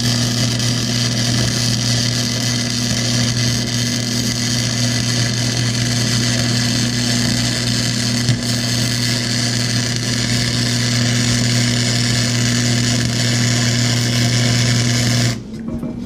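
MIG welding arc from a Mastercraft 110 welder, a steady crackling sizzle over the welder's hum, as a bead is run along a crack in an exhaust manifold. It cuts off suddenly near the end.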